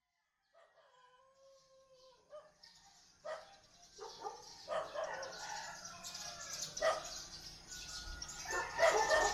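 Roosters crowing and dogs barking, several animals overlapping. A faint, drawn-out crow comes first; from about three seconds in the barks and crows get louder and more frequent.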